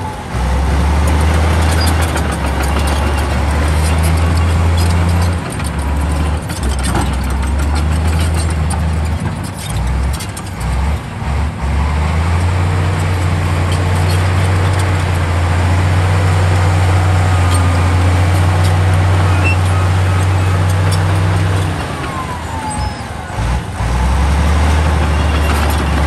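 Komatsu D68E bulldozer's diesel engine running under load with a deep, steady drone. The drone drops away briefly several times: around six seconds in, between about ten and twelve seconds, and again near the end.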